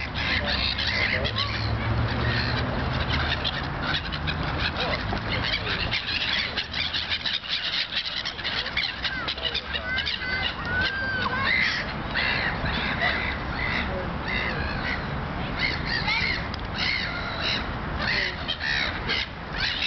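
Many birds calling at once, a dense chorus of overlapping short calls and chirps that carries on throughout, with a low rumble under the first few seconds.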